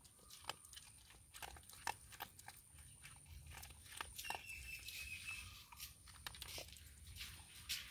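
A puppy chewing dry kibble: a string of faint, irregular crisp crunches.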